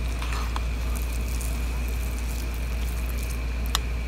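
A steady low hum with a faint high whine underneath light scraping of a metal spatula turning cooked biryani rice in a pan, and one sharp tap of the spatula near the end.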